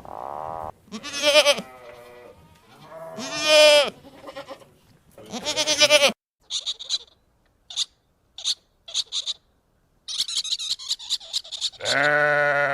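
Three loud, quavering bleats from a sheep or goat-like farm animal, about two seconds apart, followed by a run of short high chirps and then a burst of dense high twittering; another pitched call begins near the end.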